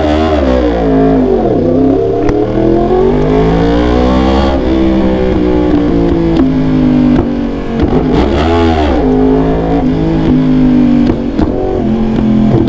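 2019 Yamaha R1's crossplane inline-four engine running through an SC Project CRT titanium exhaust, its revs dropping, then climbing and holding, with another quick rise and fall about two-thirds of the way through.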